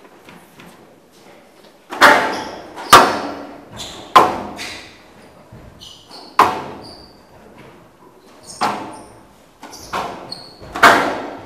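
Squash ball being struck back and forth in a rally: about seven sharp, echoing cracks of racket and wall hits, roughly one a second from about two seconds in, with short high squeaks of court shoes on the floor between them.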